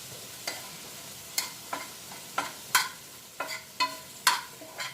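Food sizzling in a pan while it is stirred, the utensil knocking against the pan about eight times with short ringing clinks.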